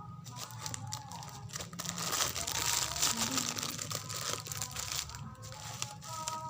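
Packaging crinkling and rustling as it is handled and opened, a dense crackle that is loudest about halfway through.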